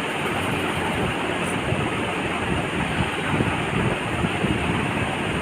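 A steady rushing noise, even throughout.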